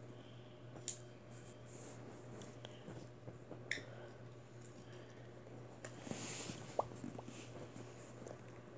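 Faint scattered clicks and rubbing of a phone being handled close to its microphone, with a sharper click about a second in, another near 4 s and a louder one near 7 s, over a steady low hum.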